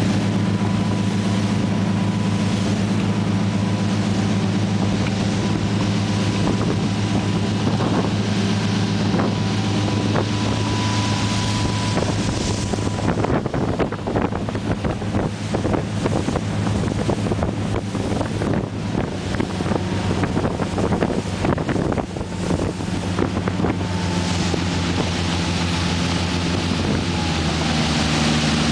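Motorboat engine running at speed with a steady hum, under wind on the microphone and rushing water from the hull and wake. About halfway through, a stretch of rapid knocks and gusts of buffeting sets in and eases off again near the end.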